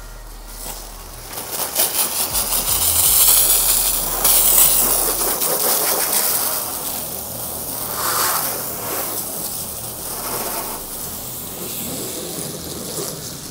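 Garden hose spray nozzle spraying water onto a truck's metal hood: a steady hiss of spray with water spattering on the paint. It starts about a second and a half in, is loudest over the next few seconds, and eases off toward the end.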